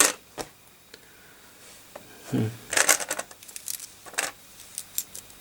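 Scattered small sharp clicks and clinks of hard objects being handled on a workbench, with a quick cluster of them about three seconds in.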